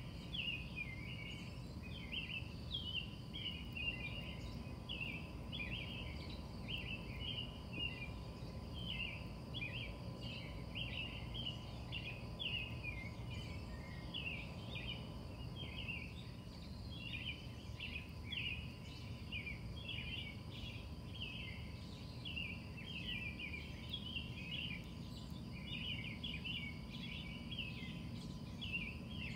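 Night-time chorus of short, high chirps, several a second and overlapping without a break, over a low background rumble and a faint steady hum.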